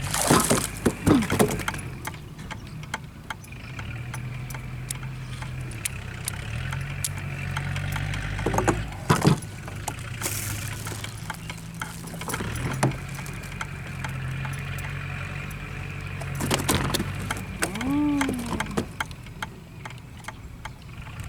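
Small boat engine idling steadily, its pitch shifting slightly a few times, with loud sharp clatters and knocks now and then: the loudest in the first second and a half, again about nine seconds in and about sixteen seconds in.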